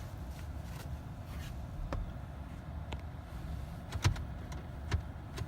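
A scattering of sharp clicks from the ignition key and cabin switches of a Jeep being turned, over a steady low rumble. The engine does not crank: it is a no-start, which the owner puts down to the park/neutral interlock not engaging, so the transmission control module will not allow a start.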